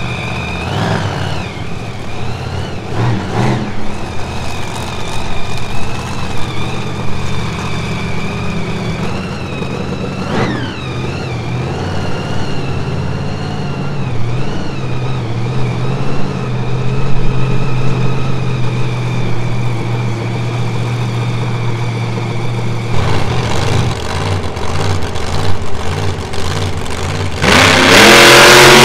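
Monster truck engine idling with a steady low drone, with a short rising rev about ten seconds in. Near the end it suddenly revs hard and much louder.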